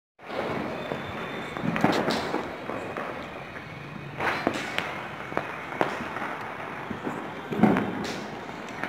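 Firecrackers going off over a steady crackling hiss, with a string of sharp bangs scattered through, the loudest about three quarters of the way in.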